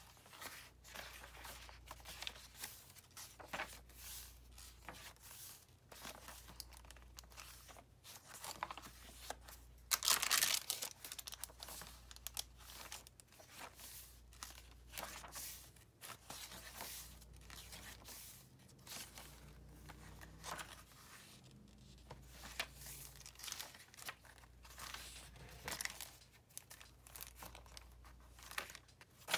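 Paper pages of a handmade journal, including coffee- and tea-stained papers, being turned one after another, each with a short rustle and flap. The loudest rustle comes about ten seconds in.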